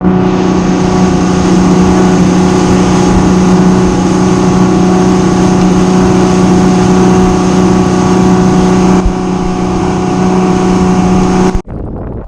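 Motorboat engine running steadily at speed, with wind and water rushing past; it cuts off abruptly near the end.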